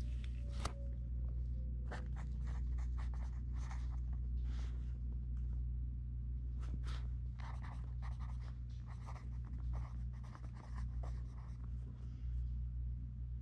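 A pen writing on paper in short, irregular scratchy strokes, over a steady low hum.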